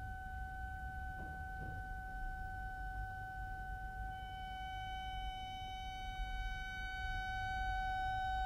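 Accordion holding a single high note, steady in pitch. From about halfway through it grows brighter and slightly louder as upper overtones come in.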